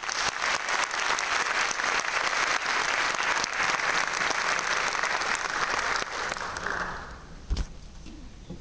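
Concert-hall audience applauding, the clapping dying away about seven seconds in. A single low thump sounds near the end.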